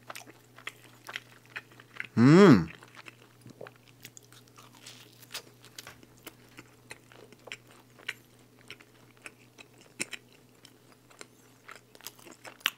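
Close-miked chewing of a mouthful of pizza, with many small crunches and mouth clicks, and one short hummed 'mm' about two seconds in.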